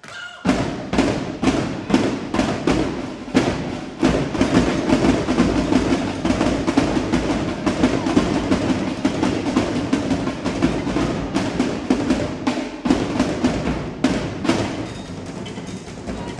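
A drill team's drum line playing dense, fast drumming. The drumming comes in suddenly about half a second in and is loud throughout, with a heavy low drum layer under quick sharp strokes.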